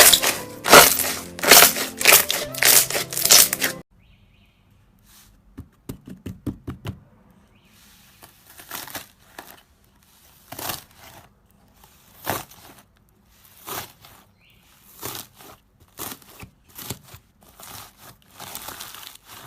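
Slime being squeezed and pressed by hand, crackling and popping in irregular bursts. The crackles are loud and dense for the first four seconds, then turn quieter and more scattered.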